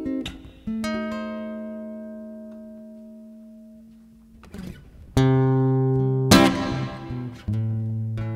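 Guitar played unaccompanied: a few quick picked notes, then a chord left ringing and fading away for about four seconds. Full strummed chords come in about five seconds in.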